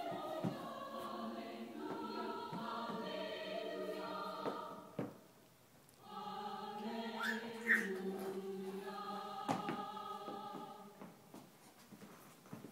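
A choir singing long held chords, breaking off about five seconds in and coming back a second later.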